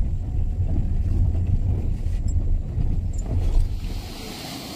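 Road and engine rumble inside a moving car's cabin, steady and low. Near the end it falls away to a quieter, even hiss.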